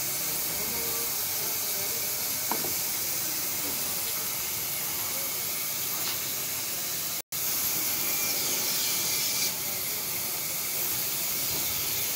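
Gravity-feed air spray gun hissing steadily as it sprays enamel undercoat. The sound cuts out completely for a moment a little past halfway.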